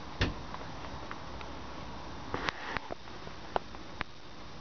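Handling and movement noise in a small boat cabin: a steady low hiss with scattered sharp clicks and knocks, the loudest just after the start and a cluster from a little past the middle.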